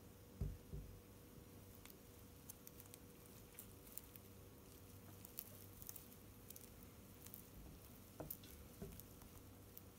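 Near silence: faint room hum, with a couple of soft low bumps about half a second in and scattered faint ticks after them.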